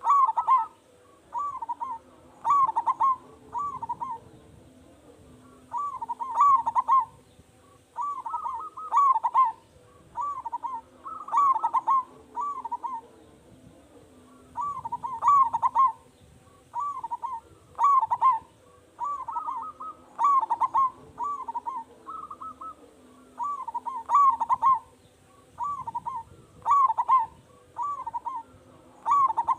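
Zebra dove (perkutut) singing: short phrases of quick, rolling coos, repeated every second or two with brief pauses between.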